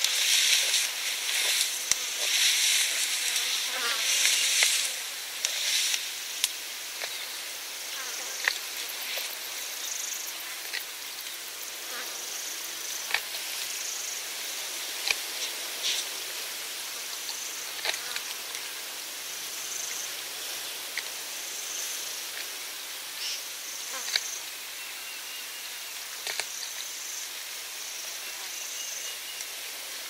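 Giraffe browsing close-up on acacia: rustling foliage with scattered sharp clicks, the rustling loudest in the first few seconds. Underneath is a steady bed of crickets chirping and flies buzzing, with faint distant bird calls near the end.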